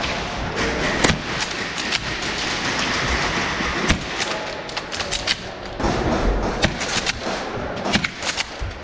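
Airsoft gunfire: scattered sharp snaps of shots at irregular intervals, with a quicker run of snaps near the end, over steady background noise.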